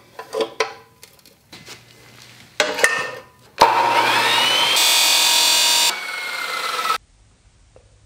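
Metal-cutting chop saw: a few metal clinks as the fence is set with a wrench. Then, about halfway through, the motor starts with a rising whine and the blade cuts through a round steel tube with a harsh screech for about a second. The saw runs on after the cut and the sound stops abruptly near the end.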